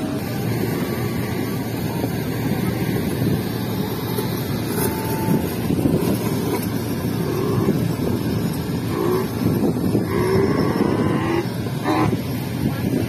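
A steady, fluttering rumble of wind on the microphone mixed with the motor noise of children's small ride-on vehicles, a drift trike and a mini dirt bike.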